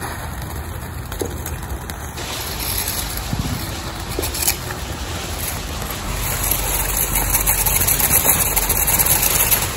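Ground fountain firework spewing sparks with a steady hiss and a few crackles, growing louder about six seconds in.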